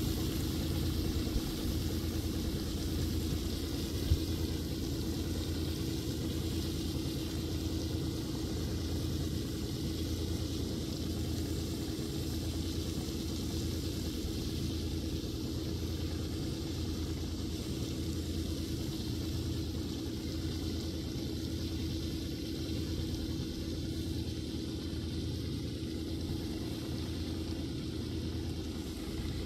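Farmtrac 685 DT tractor's diesel engine running steadily under load as it pulls a slurry tanker that is spreading slurry through its splash plate, with a steady hiss over the engine. The sound fades slightly as the rig moves away.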